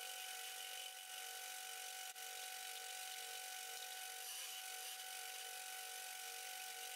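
Hafco AL250G metal lathe running while the tool turns a convex cone on the end of a steel rod: a faint, steady whine.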